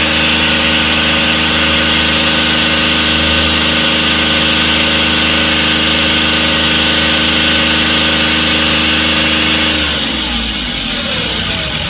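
Ashok Leyland Dost's diesel engine running steadily, kept running to circulate radiator-flush cleaner through the cooling system. About ten seconds in its pitch falls.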